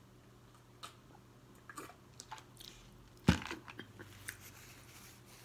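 Close-up mouth sounds of drinking water and then chewing peanut butter sandwich: quiet scattered clicks and smacks, with one louder, sharper sound a little past halfway.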